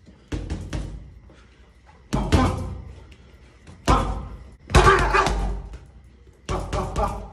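Boxing gloves pounding a heavy punching bag in quick combinations of two to four punches, about five combinations with short pauses between.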